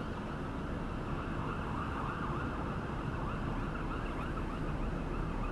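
Faint emergency-vehicle siren wailing, its pitch rising and falling, becoming clearer about two seconds in, over a steady low hum.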